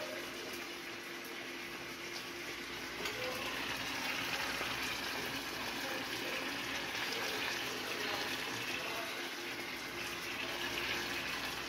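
Fish steaks sizzling as they fry in melted butter in a skillet: a steady frying hiss that grows a little louder about three seconds in.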